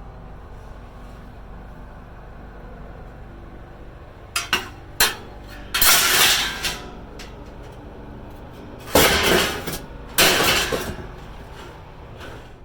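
Pieces of scrap metal clanking and clattering as they are thrown onto a pile, over a low steady hum. There are three quick sharp clanks about four seconds in, then three longer crashing clatters.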